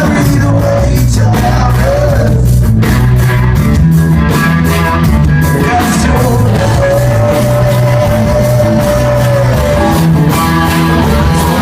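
Rock band playing live: drums, bass and electric guitars at full volume, with a long held high note near the middle.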